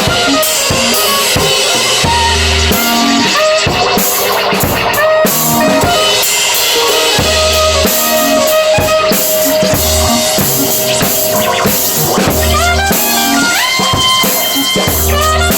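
Improvised live band music: a drum kit keeps a steady beat with bass drum and snare hits under bass and other pitched instruments holding and sliding through notes.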